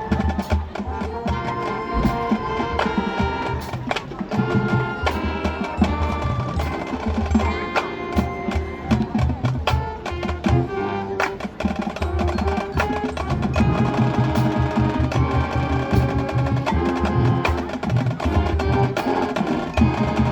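High school marching band playing, with brass and wind melody over a drumline's steady beat.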